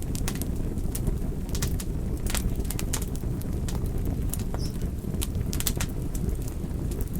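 Wood fire in a fireplace burning, with frequent irregular sharp crackles and pops from the logs over a steady low rumble.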